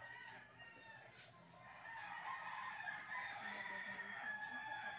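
Rooster crowing, with a long drawn-out crow from about two seconds in.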